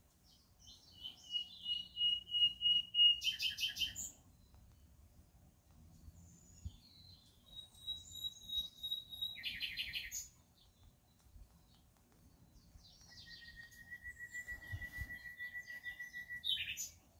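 A songbird singing three phrases. Each opens with a few scattered notes, goes into a long, even trill held at one pitch for about two seconds, and ends in a short, loud burst of notes. The second trill is higher than the first and the third is lowest.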